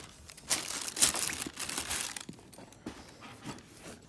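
Wrapping tissue paper rustling and crinkling as a new sneaker is handled and turned, busiest in the first two seconds, then dying down to light rustles.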